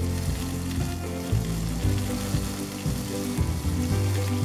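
Blanched asparagus sizzling in hot olive oil in a frying pan on high heat, with tongs shifting the spears. Background music plays underneath.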